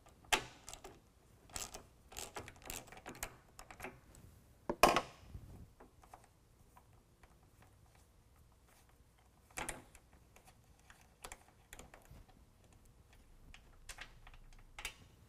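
Irregular metal clicks and ticks from a T40 Torx bit on an extension and ratchet backing a bolt out of a sport-bar bow bracket. The loudest click comes about five seconds in and another near ten seconds.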